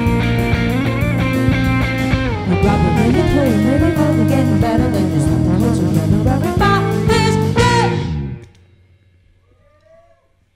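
Live jazz-fusion band playing at full volume, with guitar, bass and drums under gliding, bending lead lines. The music cuts off abruptly about eight seconds in, leaving a quiet pause.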